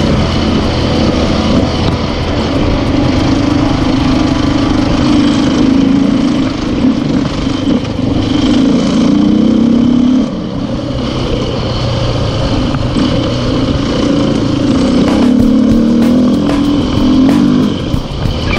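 Enduro motorcycle engine being ridden, its pitch rising and falling as the throttle opens and closes, easing off about ten seconds in and pulling up again near the end.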